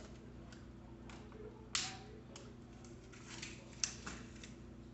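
Scattered small clicks and taps of bicycle parts being handled while the front wheel is fitted into the fork, with a sharper click a little under two seconds in and another near four seconds, over a steady low hum.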